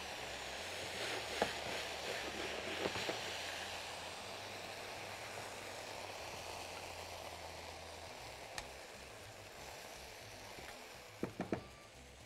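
Whole crabs sizzling as they sear in hot oil with cumin in a frying pan. The sizzle slowly dies down, broken by a few light clicks, with a quick cluster of them near the end.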